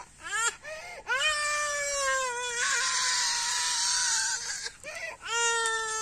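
A toddler crying: two short sobs, then long high wails, with a rougher, breathy stretch in the middle and a fresh wail starting about five seconds in.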